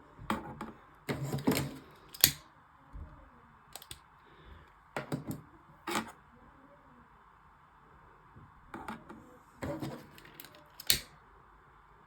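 Irregular clicks and light knocks, about a dozen spread unevenly, from objects being handled at a desk, over a faint steady hum.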